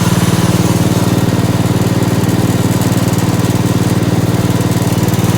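Gravely 812 garden tractor's engine running at a steady speed with an even, rapid beat.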